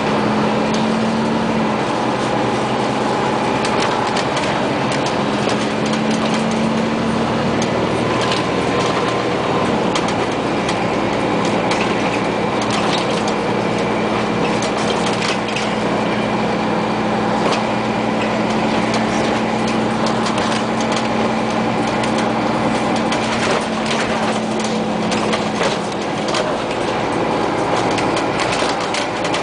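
Cabin noise inside a Scania CN94UA OmniCity city bus under way: the engine's steady hum and road noise, with frequent short rattles and knocks from the bus body.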